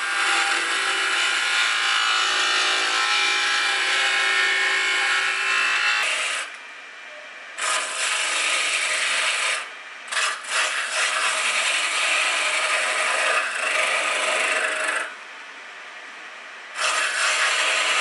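Hand-held woodturning chisels cutting a spinning wooden spindle on a small wood lathe: a steady rasping, shaving cut. The cut breaks off three times, about a third of the way in, near the middle and near the end, as the tool is lifted and only the lathe's quieter running remains.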